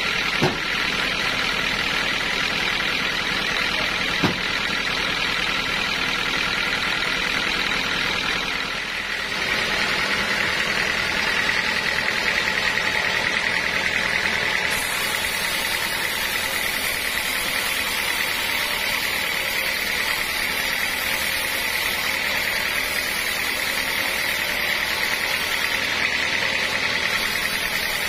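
Band sawmill running steadily, with two sharp knocks in the first few seconds as the teak beam is handled on the carriage. From about nine seconds in, the band saw blade is cutting lengthwise through the teak beam, a steady high whine with hiss.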